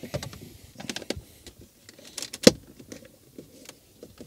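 Hard plastic car-interior trim clicking, scraping and knocking as a centre-console insert is worked loose and lifted out by hand, with one sharp knock about two and a half seconds in.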